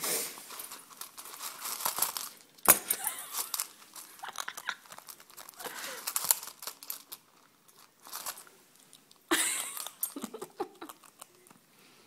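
A pet eating: irregular crunching, tearing and crinkling as it works at its food, with a sharp knock a little under three seconds in.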